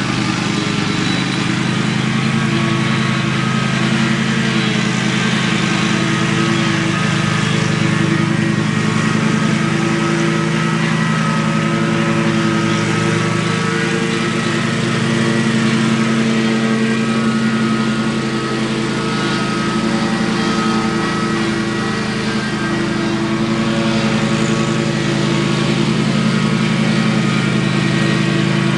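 Stand-on commercial mower running steadily as it mows an overgrown lawn: a constant engine hum with the rushing noise of the spinning blades.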